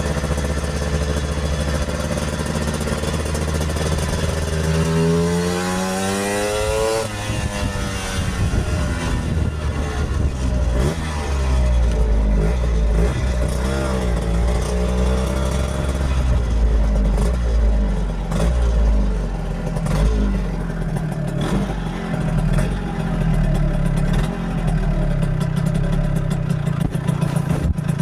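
A 1964 Lambretta Series 3 scooter's two-stroke single-cylinder engine running under way. It revs up with a rising note about four to seven seconds in, drops sharply in pitch at a gear change, then runs on lower and more unevenly.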